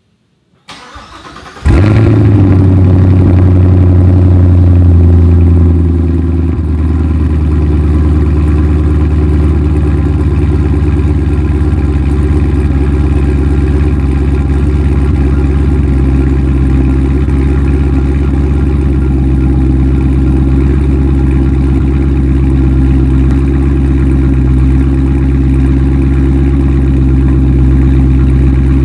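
Cold start of a 2017 Camaro SS 1LE's 6.2-litre LT1 V8 through a Stainless Works cat-back exhaust in Sport Mode: the starter cranks for about a second, the engine catches loudly and runs at a fast idle, then settles a little lower about six seconds in to a steady idle.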